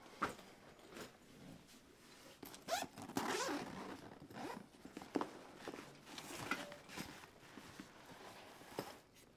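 Zipper on a StarFrame Brick disc golf bag being pulled closed, with rustling of the bag's fabric as it is handled.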